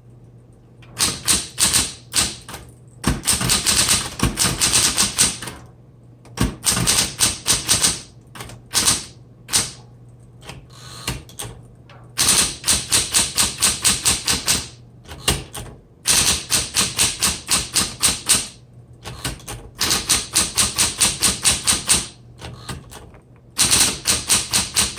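1960s Smith Corona Electra 120 electric typewriter being typed on: rapid runs of sharp typebar strikes, several per second, in bursts of a few seconds broken by short pauses, over a steady low hum.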